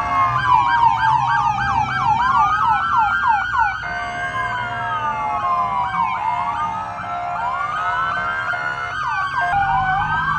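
Several police car sirens sounding at once and overlapping. Slow rising-and-falling wails cross a fast yelp that runs for about three seconds near the start.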